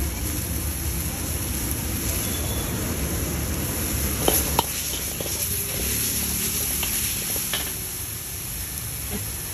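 Shredded cabbage and vegetables sizzling in a large metal wok as a steel ladle stirs them, over a steady low rumble. The ladle clinks sharply against the wok twice about four and a half seconds in, and once more about three seconds later.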